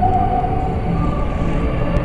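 Music with long held notes playing over loudspeakers, over a dense low rumble of fireworks being launched, with one sharp crack near the end.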